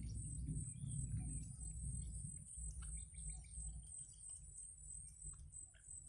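Steady high-pitched insect drone with scattered short, faint chirps from nestlings begging at the nest. A low rumble sounds over the first few seconds and fades out.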